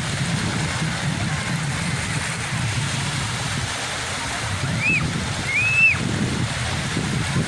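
Sea waves washing with a steady low rumble, and two short high-pitched calls about five and six seconds in.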